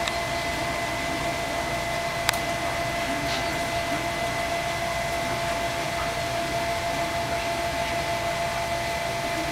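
Steady machine hum and hiss with a few constant tones running through it, and a single sharp click about two seconds in.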